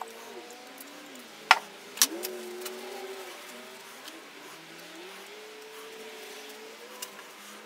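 Old steel pliers being worked open and closed by hand, with two sharp metal clicks about a second and a half and two seconds in and a few lighter ticks after. Under them runs a faint wavering tone that slides slowly up and down.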